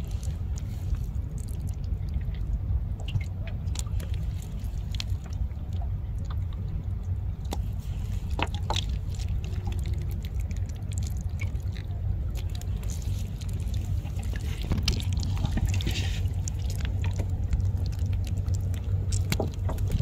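Fine nylon gill net being handled and picked through by hand, with scattered small rustles and clicks as fish are freed from the mesh, over a steady low rumble.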